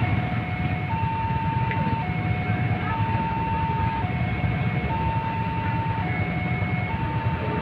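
Railway level-crossing warning signal sounding: an electronic two-tone alarm that alternates between a higher and a lower note, about one note a second. It warns that a train is approaching.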